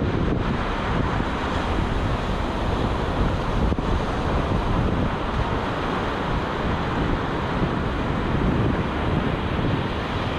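Wind buffeting the microphone over the steady wash of surf breaking on the shore.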